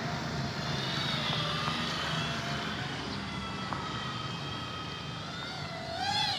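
Motor of a homemade replica airplane in flight: a whine that drifts slowly up and down in pitch over a steady low hum. Just before the end, a short wavering cry-like sound rises and falls.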